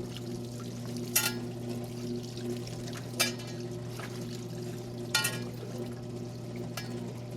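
Wringer washing machine running: a steady motor hum with water splashing in the tub about every two seconds as the agitator churns the wash.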